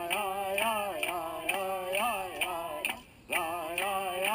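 A man singing a Chumash ceremonial chant in long held notes that bend up and down, over a steady beat of sharp clicks about twice a second. The singing breaks off briefly about three seconds in, then resumes.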